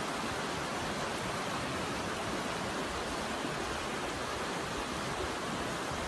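Steady rushing of a fast-flowing mountain stream over rapids, an even wash of water noise with no breaks.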